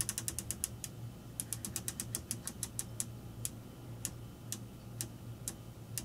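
Rotary cycle selector knob of an Admiral (Whirlpool) belt-drive washer clicking through its detent positions. It starts with two quick runs of rapid clicks, then slows to single clicks about half a second apart, as the knob is turned to bring up the diagnostic self test.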